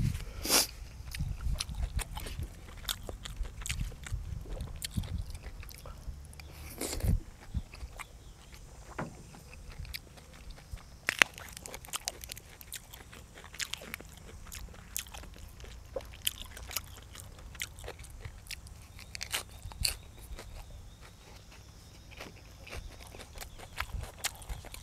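A person eating close to the microphone: biting and chewing food in irregular sharp clicks and bites, a few of them louder.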